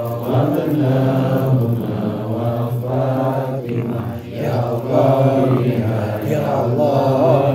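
A group of men chanting Arabic prayers together, a steady, continuous tahlilan recitation of many male voices.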